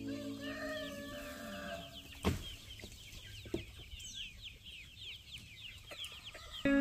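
A flock of chickens clucking, with many short high peeps throughout and one sharp knock about two seconds in.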